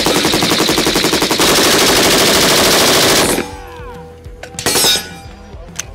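Scoped AR-style rifle firing one long burst of fully automatic fire lasting about three and a half seconds, then stopping. A shorter burst of gunfire follows about a second later.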